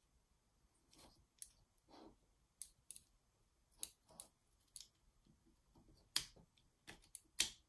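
Wooden parts and dowels of a Timberkits pelican automaton kit clicking and knocking together as a piece is worked onto the dowels by hand. Scattered, irregular faint clicks, with a few louder ones near the end.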